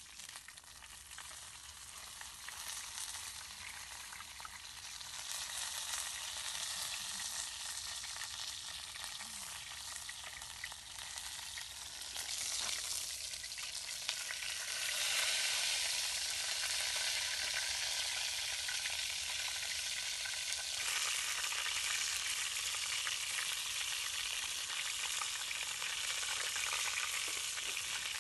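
Whole fish frying in hot oil in a pan over a wood fire: a steady sizzle that grows louder, stepping up twice, with a spatula stirring and turning the fish in the pan.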